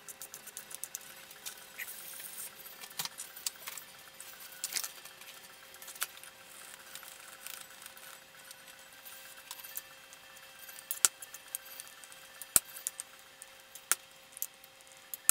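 Metal spoon stirring and scraping a wet diced-potato mixture in a stainless steel mixing bowl, giving a run of light clicks and scrapes, with a few sharp metal clinks against the bowl in the second half.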